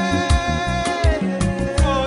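Music with a steady drum beat and melodic lines that slide in pitch.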